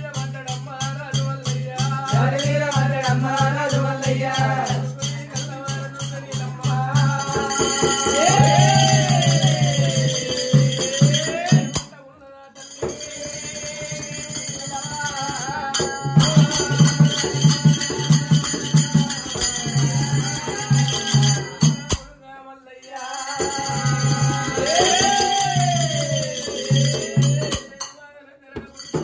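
Oggu Katha folk devotional music: a voice singing a bending, gliding melody over a steady low drone and fast, dense jingling percussion. The music breaks off briefly three times.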